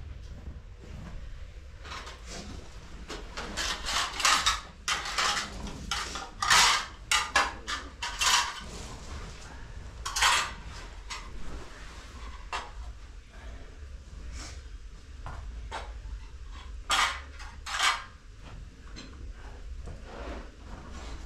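Clatter of hard household objects being handled: a quick run of sharp clinks and knocks about two to nine seconds in, and a few more later, over a low steady rumble.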